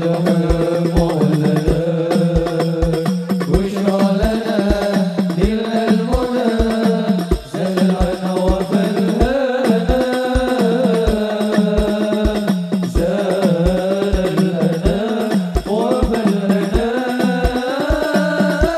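Hadroh sholawat: a group of men singing an Islamic devotional song together into microphones, over hand-struck rebana frame drums and a deep bass drum beating steadily about twice a second.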